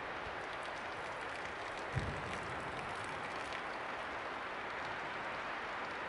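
Hot pasta water pouring in a steady splashing stream from a camping pot through its strainer lid onto the ground, with one soft thump about two seconds in.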